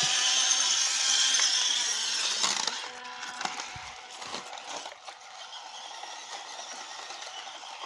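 Small RC 4x4 crawler truck's electric motor and gearbox whining as it drives. The whine drops away about two and a half seconds in to a quieter rattling of the drivetrain with scattered ticks.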